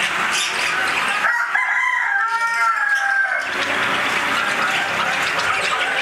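A rooster crows once, a single long call of about two seconds beginning a little over a second in. Behind it runs the continuous chirping din of many small caged birds.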